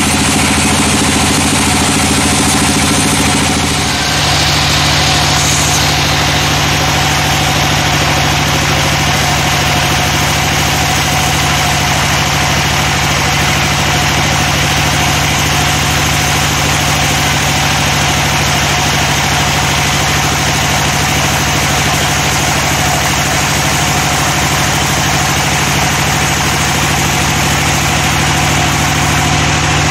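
Band sawmill running steadily, a loud machine hum with its blade working at a teak log. About four seconds in, the low note of the machine shifts and a brief hiss rises, then the running stays even.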